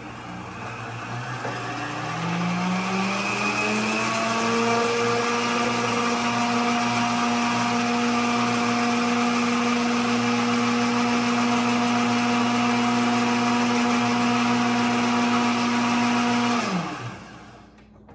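High-speed blender running: the motor winds up to speed over the first few seconds, holds a steady pitch, then is switched off near the end and winds down.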